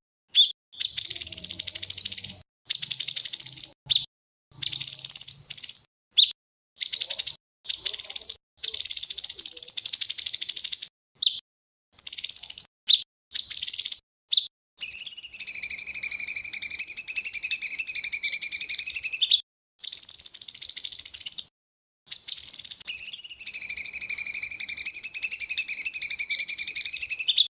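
A small songbird giving rapid, buzzy trills of fast repeated notes: short bursts of one to three seconds with brief gaps. About halfway in come two long trills of four to five seconds each, wavering in pitch.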